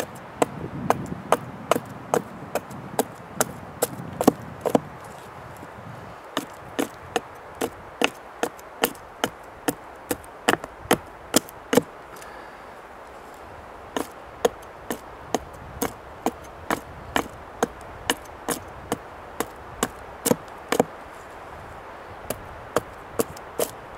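Gränsfors Bruks Small Forest Axe chopping wood: a steady run of sharp strikes, about two a second, with a short break about halfway through.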